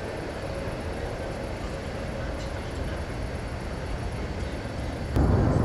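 Steady low rumble of outdoor city background noise, with no thunder heard. About five seconds in, it jumps suddenly much louder and stays loud.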